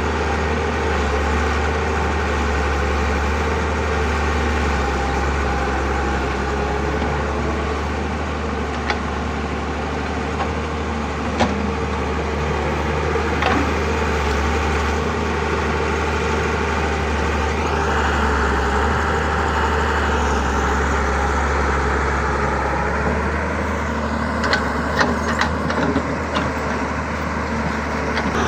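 Heavy diesel engines of an excavator and dump truck running steadily at work, with a few sharp metallic knocks, clustered near the end.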